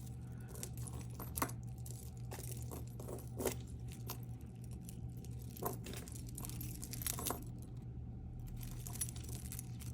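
Light clicks and clinks of a stone-bead necklace and its metal chain being handled and untangled: a few sharp ticks scattered among faint rustling, over a steady low hum.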